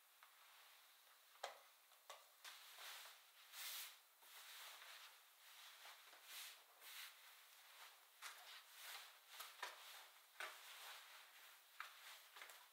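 Faint rustling and swishing of a cloth tablecloth being shaken out, spread and smoothed over a table, with a couple of soft knocks.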